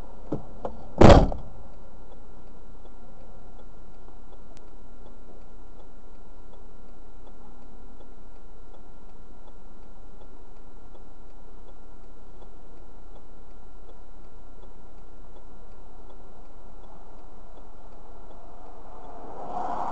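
Steady low hum inside a stopped vehicle with a faint regular ticking, and a single loud knock about a second in.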